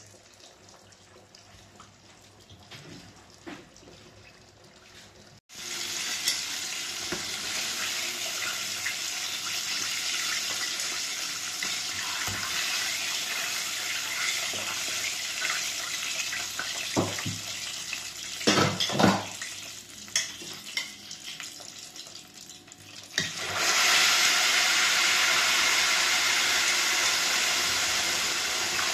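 Chicken pieces going into a pot of hot oil for deep-frying. After a few quiet seconds the oil suddenly starts sizzling hard about five seconds in, with a few short clinks of metal tongs. A second, louder burst of sizzling comes when another piece goes in near the end.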